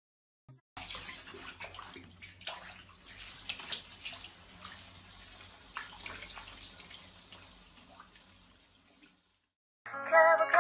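Running water, a steady splashing hiss with a few small knocks, fading and then stopping suddenly; strummed guitar music comes in near the end.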